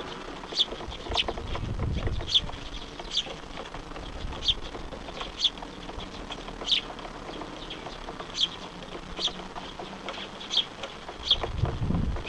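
Bird chirping: short, high notes, each dropping quickly in pitch, repeated at uneven gaps of about a second, about a dozen in all. Low rumbles come in briefly about two seconds in and again near the end.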